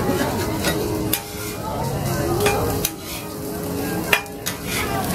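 Shredded duck confit sizzling on a hot flat-top steel griddle while a metal spatula scrapes and taps against the plate, with a handful of sharp scrapes at uneven intervals.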